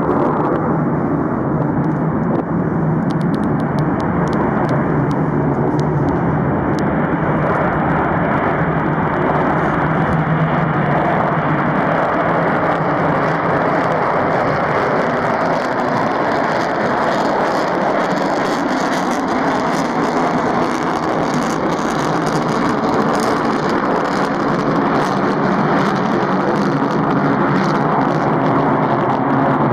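A B-1B Lancer's four General Electric F101 afterburning turbofans running at full afterburner through a takeoff roll and climb-out: loud, steady jet noise, with a higher hiss growing stronger partway through.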